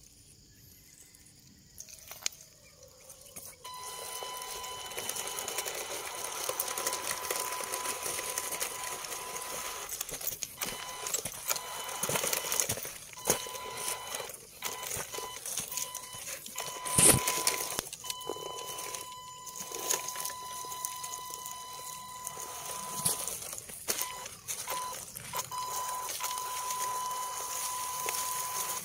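Electric motor and gearbox of a ZP1001/ZP1004 RC rock crawler running as the truck drives over gravel and rocks, a steady high whine with a whirring haze and scattered clicks that starts a few seconds in. A single sharp knock comes a little past halfway.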